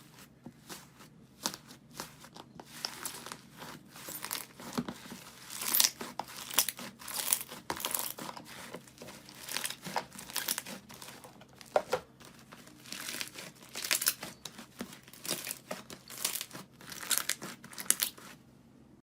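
Slime being pressed and stretched by hand, giving a dense run of crinkly crackles and small pops that stop just before the end.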